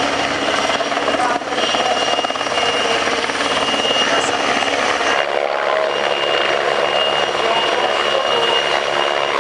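Eurocopter EC135 helicopter hovering, its rotor and turbines running steadily with a high whine. About five seconds in, the low rotor sound drops away.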